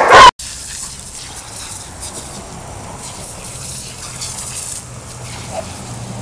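A garden hose spraying a jet of water: a steady hiss of water with faint splashing as dogs snap at the stream. It opens with the tail of a very loud dog bark that cuts off sharply.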